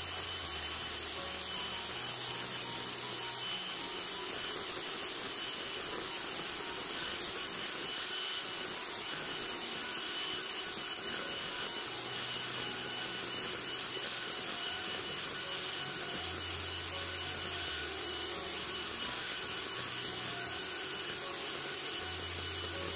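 Electric hand mixer running steadily, its twin beaters whipping eggs, sugar and cake emulsifier in a glass bowl into a thick, pale sponge batter. An even whir with a faint constant whine.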